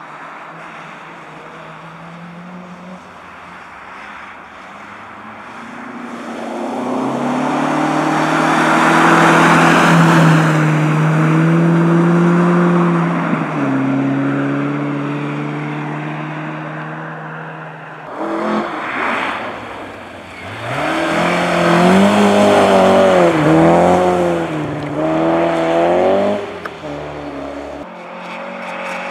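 Historic rally car engine running hard on a snowy ice track: it comes closer and passes at high revs, then after a break its revs rise and fall quickly several times for a few seconds before fading.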